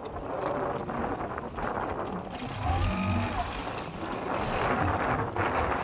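Steady rumbling noise on board a fishing boat at sea: the boat's engine running, mixed with wind and water.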